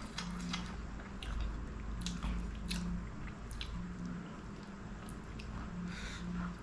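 Close-miked wet eating sounds: chewing, lip smacks and tongue clicks, with fingers squishing through saucy chicken curry and lifting a drumstick. Many short wet clicks come at irregular intervals.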